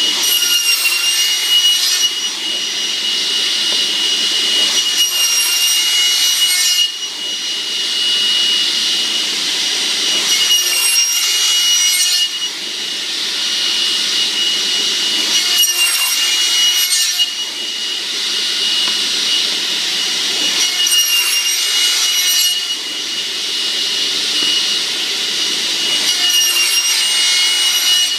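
Cross-cut saw with its blade whining steadily, cutting again and again through a taped bundle of hardwood dowels, a new cut about every five seconds.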